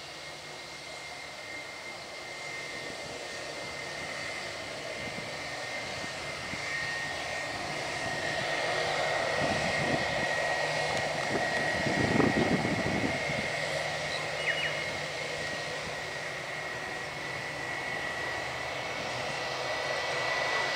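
Airbus A320's IAE V2500 turbofan engines at low taxiing power as the jet rolls past: a steady high whine over a rumble. It grows louder toward the middle, eases a little, then rises again near the end.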